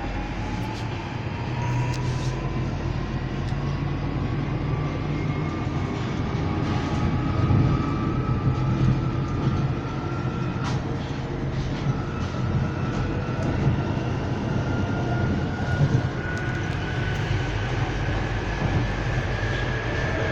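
London Underground Northern line train (1995 Tube Stock) heard from inside the carriage as it gathers speed. The traction motors give a whine that rises steadily, breaks off about eleven seconds in, then climbs again, over a continuous rumble of wheels on the track.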